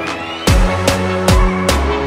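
Electronic background music: a rising sweep leads into a heavy bass drop about half a second in, followed by a steady driving beat.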